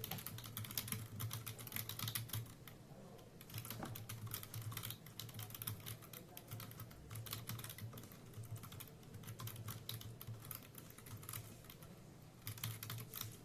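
Typing on a Dell KB216 keyboard's low-profile chiclet membrane keys: a fast, irregular run of soft key clicks.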